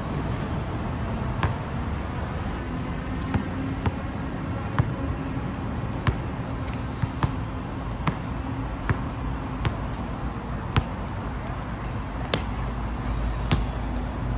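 Basketball bouncing on a hard court during one-on-one play: sharp, irregular thumps about once a second over a steady low background rumble.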